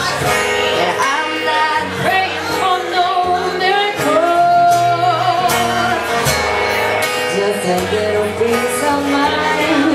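Live acoustic duo: a woman singing into a microphone over acoustic guitar accompaniment.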